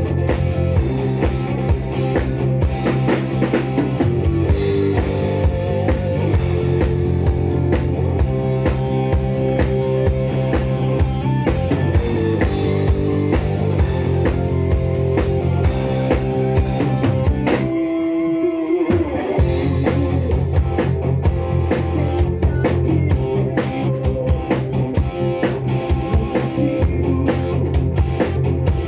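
Live rock band playing on stage: an overdriven electric guitar over a drum kit with a steady beat. About eighteen seconds in the drums drop out for a moment, leaving a single held note ringing before the band comes back in.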